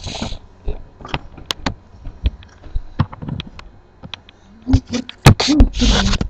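Scattered clicks and taps of handling close to a webcam microphone, with a short hiss at the start and a longer one near the end, and brief vocal sounds about five seconds in.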